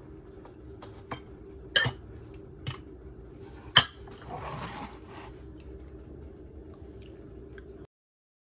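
Metal fork clinking against a white bowl several times, the two loudest clinks about two and four seconds in, followed by a short, softer scraping of the fork through the pasta. A steady low hum runs underneath.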